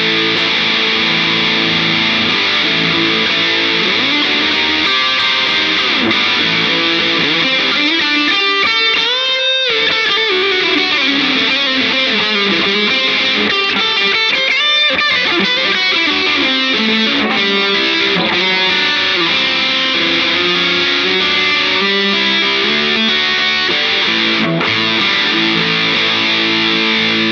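Vintage Les Paul electric guitar played through an overdriven Marshall-style amp model: distorted held notes and chords with string bends, one wide bend up and back down about nine to ten seconds in.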